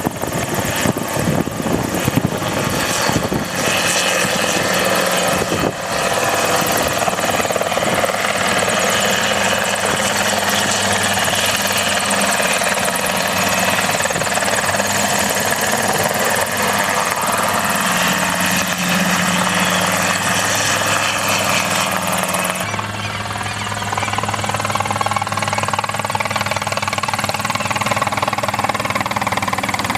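Small ultralight helicopter running, a steady rotor and engine noise with a low hum. The sound changes abruptly about two-thirds of the way through.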